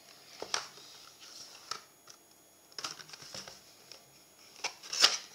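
Cardboard watch box being handled and turned over on a table: a series of light taps, scrapes and rustles, the loudest tap about five seconds in.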